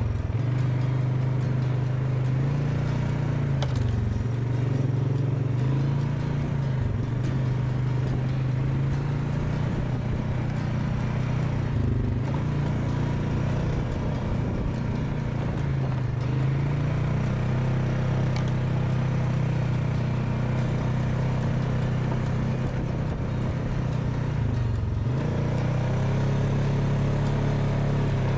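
ATV engine running under steady throttle, its pitch dipping briefly several times as the throttle eases off and picks up again, most deeply near the end.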